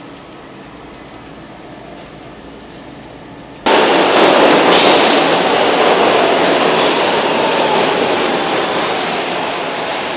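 Market-Frankford Line M-4 subway train running at low speed, a steady moderate rumble. About three and a half seconds in, a much louder rumble of subway trains in an underground station starts abruptly and slowly eases off.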